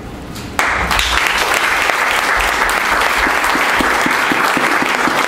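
Small seated audience applauding, breaking out suddenly about half a second in and going on steadily.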